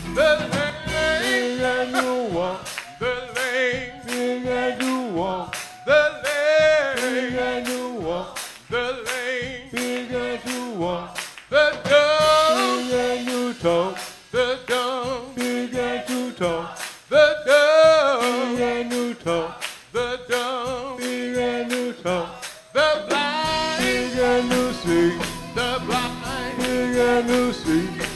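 A man singing gospel into a microphone over sustained chords and a steady beat from the church band.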